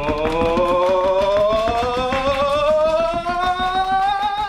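A stampede noise building up: rapid drumming taps under one long pitched tone that slides steadily upward through the whole stretch, rising as the signal to get louder.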